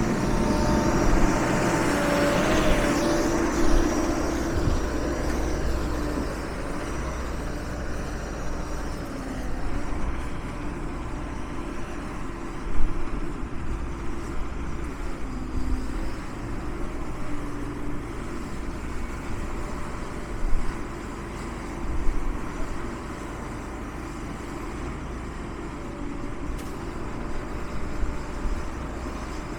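Engine of an E-Z Crusher log baler running steadily with a low rumble and a pitched whine that fades after about four seconds, with a few sharp knocks or clanks partway through.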